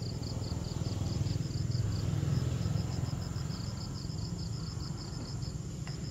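Insects chirping outdoors in a steady repeating rhythm of short high pulses in small groups, over a low rumble.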